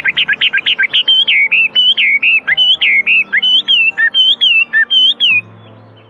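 Chinese hwamei singing: a fast run of loud, clear whistled notes, rapid and repeated at first, then slurred up-and-down phrases, stopping about five seconds in.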